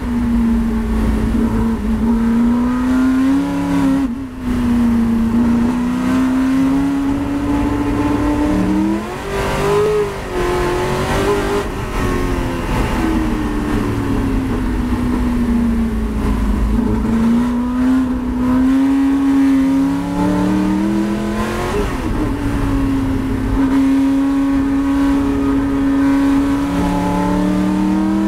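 Ford GT40's V8 engine heard from inside the cockpit at racing speed, its note climbing under throttle and dropping back on lifts and gear changes, over a steady low rumble from the road.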